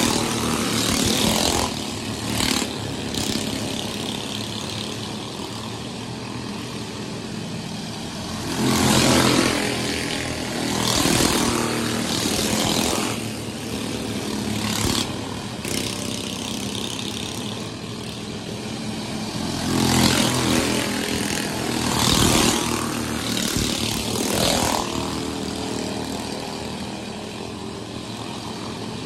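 Several dirt-track race cars running laps, their engines loud and unbroken. The sound swells and fades again and again as one car after another passes close by.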